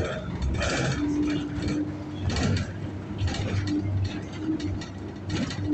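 Annoying rattling and clicking from inside a city transit bus, coming in irregular bursts about once a second over the bus's low running hum, with a low drone that comes and goes.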